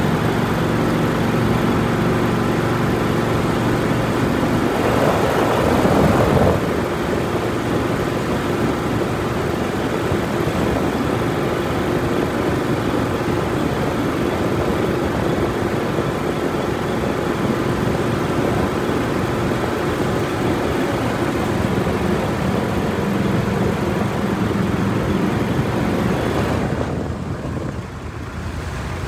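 Go Devil surface-drive mud motor running steadily under way, pushing the boat across open water. There is a brief louder rush about five seconds in. Near the end the engine drops back to a lower, duller run.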